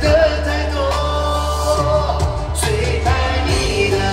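Live pop song performed in concert: a singing voice carrying a gliding melody over steady band accompaniment with a sustained bass.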